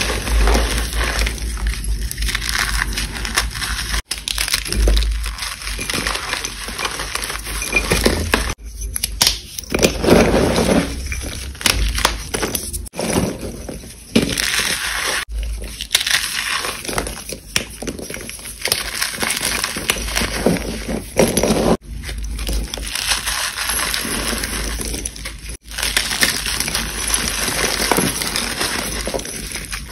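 Hands crushing and crumbling reformed chalk blocks and loose chalk powder, a continuous dry crunching and crumbling, mixed with white school chalk sticks being squeezed in the hand and knocking together. The crunching breaks off abruptly a few times.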